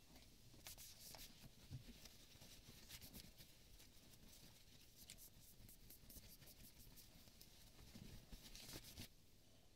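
Faint rustling and crackling of a cloth rag being crumpled and handled, in quick irregular strokes that stop about nine seconds in.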